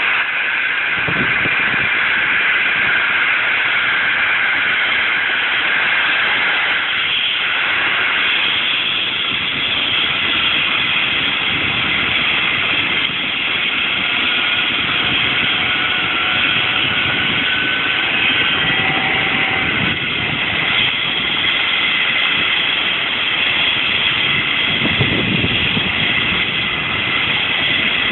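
Eurocopter EC135 air-ambulance helicopter running on the ground with its main rotor turning. Its twin turbines give a steady high whine of several tones over the even rush of the rotor.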